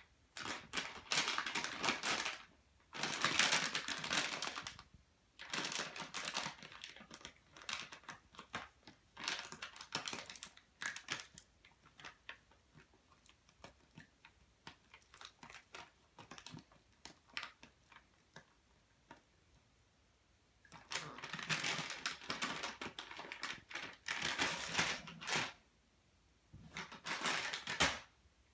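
Plastic treat bag crinkling and crackling in irregular bursts as a puppy chews and tugs at it. In the middle there is a quieter stretch of scattered small crackles before the loud crinkling returns.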